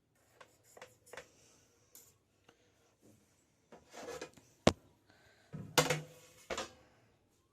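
A knife scraping and knocking around the inside edge of a cake tin to loosen a baked sponge cake. There are a series of clicks and sharp knocks, the loudest a little over four and a half seconds in and again around six seconds in.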